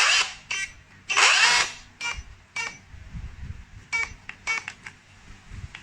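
Dongcheng rotary hammer's motor run in short bursts, each spinning up briefly and stopping, with a scraping, rubbing noise. The longest and loudest burst comes about a second in, with shorter, fainter ones after. It is the rotor rubbing against the stator, which is typically put down to a failed bearing.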